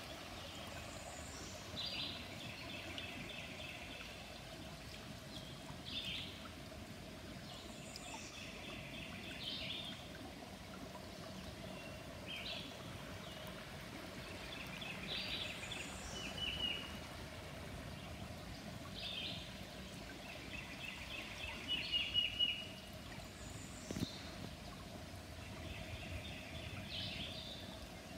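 A songbird singing a short phrase that ends in a trill, repeated every three to four seconds, over the steady rush of a woodland creek.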